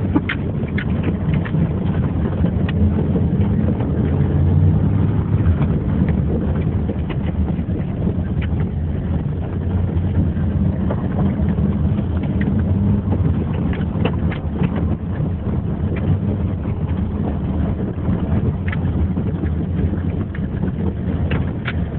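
A vehicle's engine running steadily, with scattered short rattles and knocks over it.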